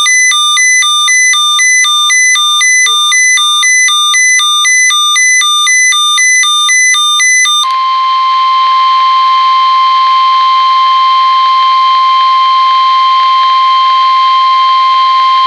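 Electronic alert beeping that alternates between two pitches, about two high-low cycles a second. About eight seconds in it gives way to the NOAA Weather Radio warning alarm, a steady single 1050 Hz tone, sounded as the weekly test of the alarm.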